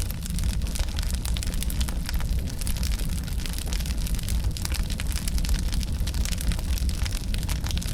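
Wood fire burning in a fireplace: a steady low rumble of flame with dense, irregular crackles and small pops from the burning logs.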